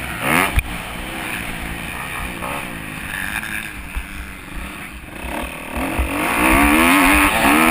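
Kawasaki 250 motocross bike engine revving up and down as the throttle is worked, heard from a camera on the bike. A sharp knock comes just after the start, the engine eases off through the middle, then pulls hard again from about six seconds in.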